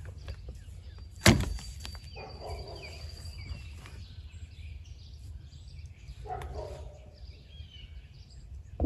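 Quiet outdoor campsite ambience with a steady low rumble and faint bird calls, broken by a single sharp knock about a second in.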